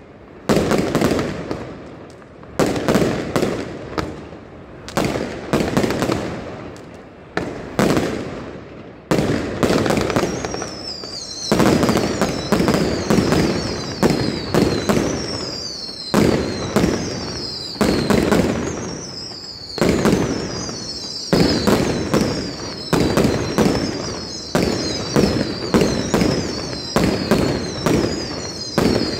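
Mascletà fireworks: shells banging one after another, a bang every second or two, each trailing off in crackling. From about ten seconds in, high whistles falling in pitch repeat over the bangs.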